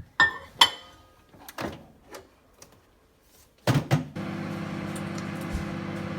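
Microwave oven: a series of clicks and knocks as it is loaded and shut, then about four seconds in it starts running with a steady hum.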